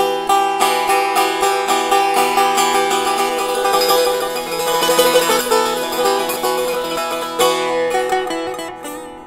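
Solo Persian setar: rapid plucked notes over ringing drone strings, a fast run with one last accented stroke before the sound dies away near the end.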